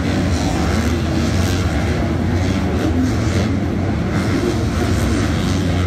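A pack of 250cc four-stroke supercross motorcycles running and revving together around a dirt track, many engines blending into one steady, loud sound.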